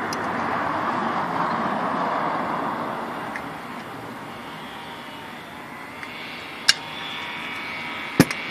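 Caulking gun laying a bead of sealant, with two sharp clicks near the end, over a steady outdoor rumble like passing traffic that eases after about three seconds.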